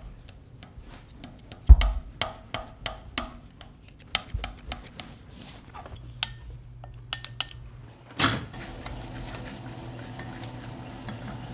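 A metal ink knife tapping and scraping against the steel rollers of a printing press: a run of irregular metallic clicks and taps. About eight seconds in there is a louder knock, then a steady hum with a hiss.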